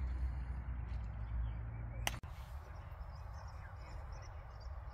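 Low wind rumble on the microphone with faint bird calls in the background; a single sharp click about two seconds in, after which the rumble drops away.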